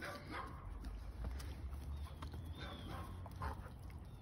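Dogs playing rough, giving a few short barks and play noises.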